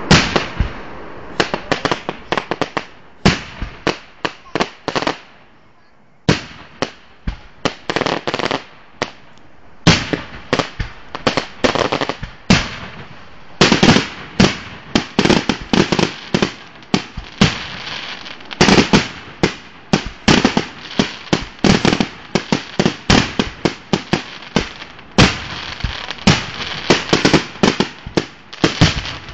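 Fireworks display: aerial shells bursting in a barrage of sharp bangs, often several a second, with a brief lull about five seconds in before the bangs resume.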